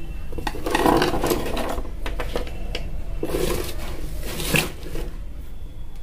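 Small motor parts and a screwdriver being moved and set down on a wooden workbench: irregular knocks, clatters and rustles, a sharper knock about four and a half seconds in, over a steady low hum.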